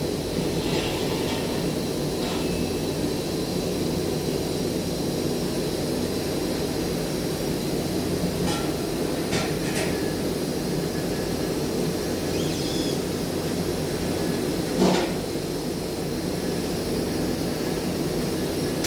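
Steady low mechanical drone with a faint electrical hum, typical of welding machines and ventilation running in a pipe-welding training shop. A few short metallic clicks and knocks cut through it, the loudest about three-quarters of the way in.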